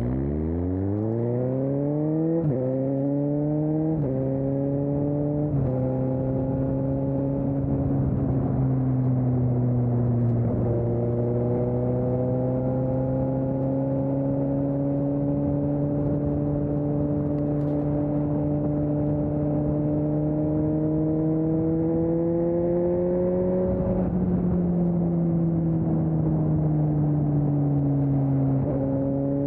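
2020 Suzuki GSX-S750's inline-four engine through an aftermarket Storm exhaust, pulling hard from low revs with three quick upshifts in the first six seconds, each dropping the pitch. It then holds steady revs at cruise with a slow rise, drops off about three-quarters of the way through as the throttle is eased, and picks up again near the end.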